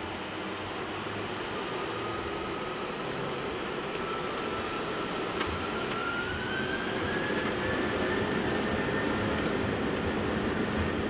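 Airbus A330-300 jet engines spooling up to takeoff thrust, heard from the cockpit during the takeoff roll. A steady rush grows gradually louder, with a whine that rises in pitch about halfway through.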